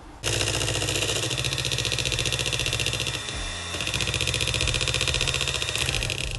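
Electric hand mixer switched on about a quarter second in, its motor running steadily as the beaters mix confectioners' sugar into a cream cheese and mascarpone frosting in a metal bowl. The sound dips briefly about halfway through and cuts out for a moment at the very end.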